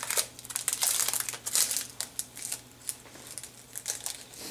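Plastic bag holding cutting dies crinkling and rustling as it is handled and worked open, in quick irregular crackles that thin out after about three seconds.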